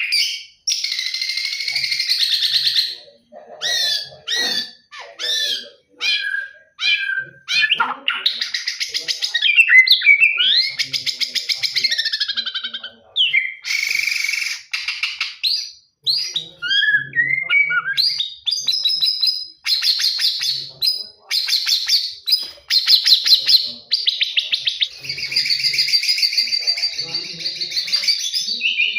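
White-rumped shama (murai batu) singing a long, varied song of clear whistles, quick trills and fast-repeated notes, delivered in phrases with short pauses between them.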